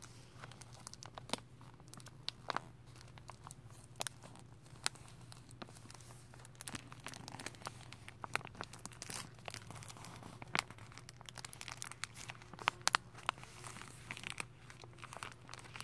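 Thin clear plastic sheeting over a carpet roll crinkling and crackling as a hand pulls and rubs it, in irregular sharp crackles. A steady low hum runs underneath.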